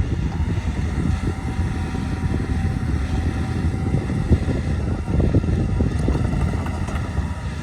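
Heavy construction machinery running steadily, a continuous low engine rumble with a faint steady whine above it.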